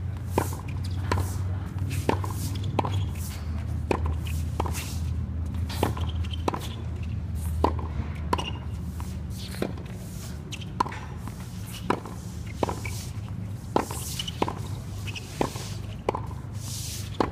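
Tennis ball struck back and forth by rackets in a fast volley rally, a sharp pock every half second to a second. A steady low hum lies underneath and fades about halfway through.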